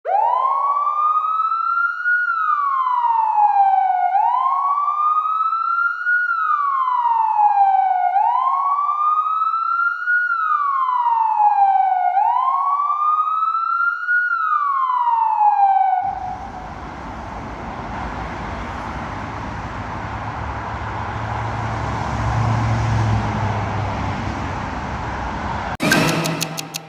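A police-style siren wailing, its pitch rising and falling slowly in about four-second sweeps, clean and with no background, for about sixteen seconds. It then cuts off suddenly to steady outdoor road noise, with a deeper rumble swelling and fading as a vehicle passes, and a sharp click near the end.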